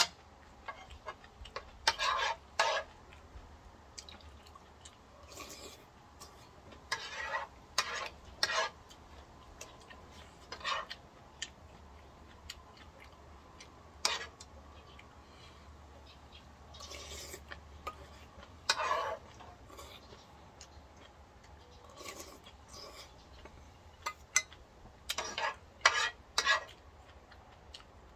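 Person eating ramen: a dozen or so short separate bursts of slurping and chewing, with utensils clicking against the bowl.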